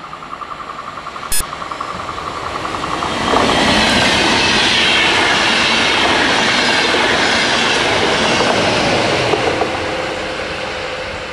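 Deutsche Bahn Intercity train with a Class 101 electric locomotive pushing at the rear, passing at speed: a pulsing ringing tone as it approaches, a sharp click about a second in, then a loud rush of wheels and coaches from about three seconds in that begins to fade near the end, when a steady tone comes in as the locomotive goes by.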